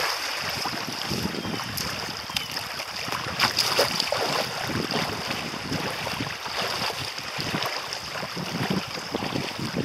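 Small lake waves lapping and washing onto a sandy shore close to the microphone, with wind buffeting the microphone. A man wading into the shallows splashes a few times, loudest about three and a half to four seconds in, over a steady high hiss.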